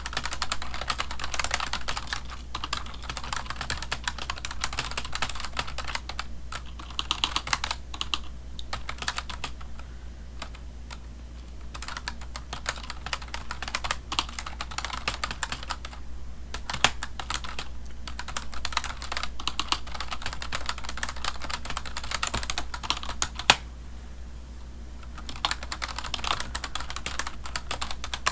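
Typing on a computer keyboard: rapid runs of keystroke clicks that ease off briefly about ten seconds in and again near the end, over a steady low hum.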